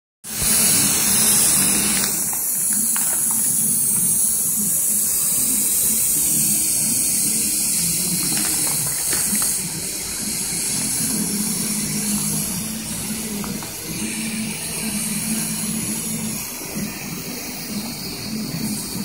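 A steady, loud hissing jet sprayed into a perforated stainless-steel cone, with a low hum running under it; it comes on abruptly at the start and eases slightly about halfway through.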